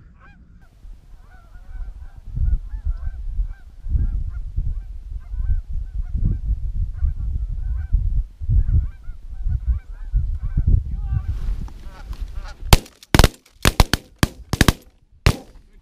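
Canada geese honking over and over as a flock comes in to the decoys, over a low rumble of wind on the microphone. In the last three seconds a volley of about ten loud, rapid shotgun shots rings out.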